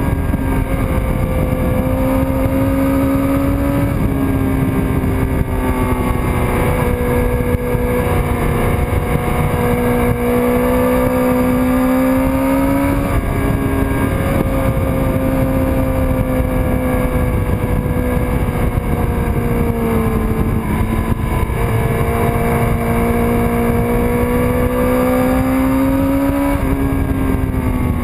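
1999 Kawasaki ZX-6R's inline-four engine running hard at track speed. Its note climbs slowly and drops back about four times as the rider works the throttle and gears through the corners, with heavy wind rushing over the bike-mounted microphone.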